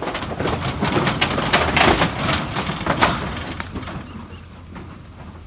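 Cattle moving in a metal livestock trailer, their hooves and bodies knocking and clattering against the floor and sides in a quick string of sharp knocks that dies down after about three and a half seconds.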